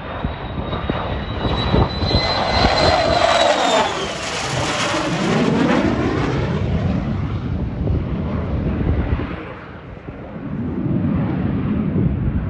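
F-35A jet and P-51 Mustang flying past overhead in formation: loud jet engine noise with a high whine that falls in pitch as they go by, a few seconds in. The noise dips about ten seconds in and swells again near the end as the pair comes round.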